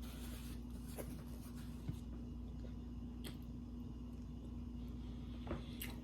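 Faint mouth sounds of someone chewing food, a few soft wet clicks and smacks, over a steady low electrical hum.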